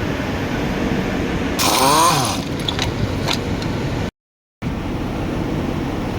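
Ford Ranger engine running steadily, with a short squeal about two seconds in followed by a few light clicks. The sound cuts out completely for half a second past the middle.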